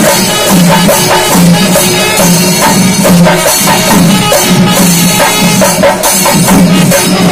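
Panchari melam: a large Kerala temple ensemble of chenda drums beaten with sticks, together with ilathalam cymbals, playing loud, dense, steady rhythmic percussion. A low tone recurs in short blasts about once a second over the drumming.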